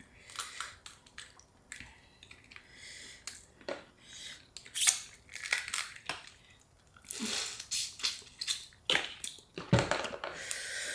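Close-up eating sounds of a spicy seafood boil: chewing and wet smacking, with irregular short clicks and crackles of shellfish being handled and bitten.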